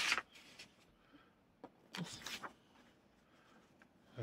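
Thin printed overlay sheets rustling and sliding as they are handled and spread out, in two short bursts: one at the very start and one about two seconds in.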